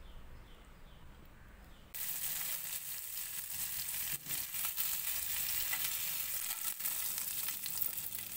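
Semolina-coated ladyfish shallow-frying in hot oil in a pan, giving a steady sizzle that starts abruptly about two seconds in, after a fainter low hum.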